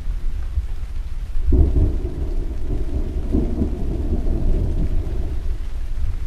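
Thunder rolling with rain: a deep rumble runs throughout, and a fresh thunderclap breaks in about a second and a half in, then rumbles for several seconds and fades.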